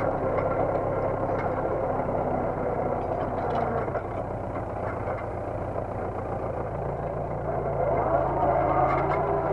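Universal DT445 tractor's diesel engine pulling steadily under load while towing a disc harrow through the soil. Its note sags a little about halfway through and picks up again near the end.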